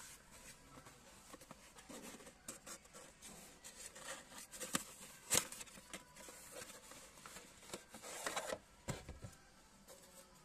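Cardboard sunglasses box being opened by hand and a soft case slid out of it: cardboard scraping and rustling with scattered taps and clicks, the sharpest click about five seconds in and a longer rustle near the end.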